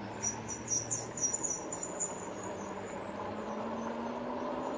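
A quick run of high, thin chirping calls for about the first two seconds, over steady wind and road noise and the low hum of the RadRover e-bike's hub motor, which rises slightly in pitch as the bike picks up speed.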